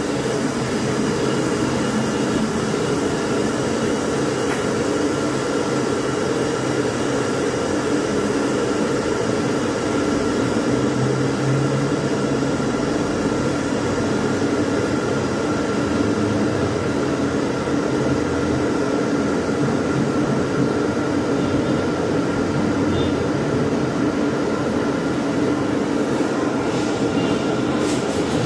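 Electric glass kettle heating water toward the boil: a steady noise with a faint high tone running through it.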